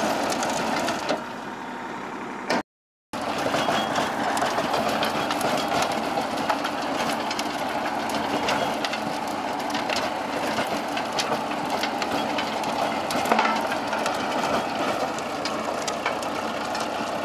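A Sonalika tractor's diesel engine runs under load while the PTO-driven rotavator behind it churns dry, cloddy soil. Many small ticks and knocks of clods and stones strike the blades and hood, with one sharper knock past the middle. The sound dips about a second in and cuts out for half a second near three seconds in.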